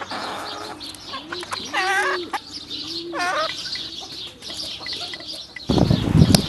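Chickens clucking, with two drawn-out hen calls about a second apart in the middle. Near the end, a loud rumble of wind on the microphone comes in.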